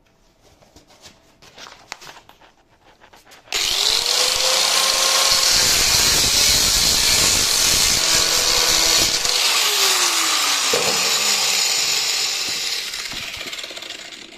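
Angle grinder with a metal-cutting disc starts about three and a half seconds in, its pitch rising as it spins up, and cuts through an aluminium door threshold in a practice cut. Near the end the pitch falls and the sound fades as the disc spins down. Light handling knocks come before it starts.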